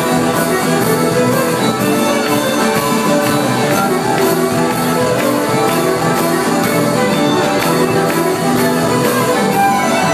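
Live band music amplified through a PA: fiddle, acoustic guitars and drum kit playing an upbeat tune with a steady beat.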